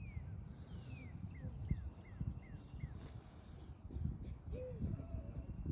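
Birdsong: a bird repeats a short falling whistled note about six times over the first three seconds, with a quick high trill among them. About four and a half seconds in comes a low cooing note, over a steady low rumble.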